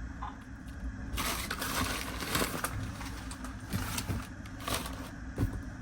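Rustling and crinkling handling noise over a steady low hum: a long stretch about a second in, then a few short bursts.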